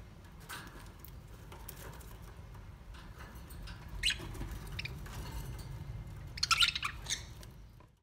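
Caged budgerigars chirping in short high calls, one about four seconds in and a quick run of chirps near the end, over a low steady rumble; the sound cuts off suddenly at the end.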